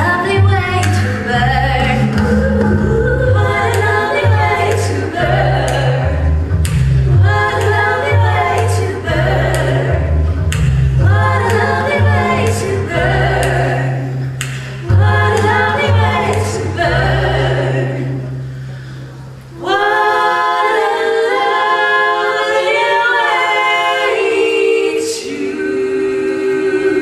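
Group of singers in multi-part harmony over a deep bass part and a steady beat. About twenty seconds in, the bass and beat drop out and the voices carry on alone.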